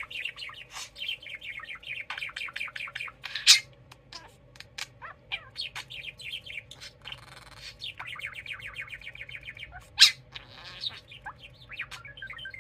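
Budgerigar chittering in rapid runs of short chirps. It gives a loud, sharp squawk about three and a half seconds in and again about ten seconds in, and makes a couple of brief raspy, growling noises between the runs.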